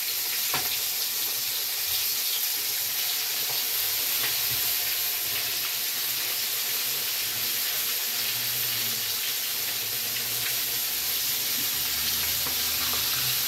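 Flour-dredged chicken wings frying in hot oil in a cast iron skillet: a steady sizzle throughout, with a light knock about half a second in.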